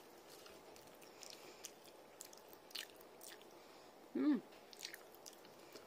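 Someone chewing a pork-and-prawn shumai dumpling: soft, irregular mouth clicks and smacks, with a short hummed 'mm' a little past four seconds in.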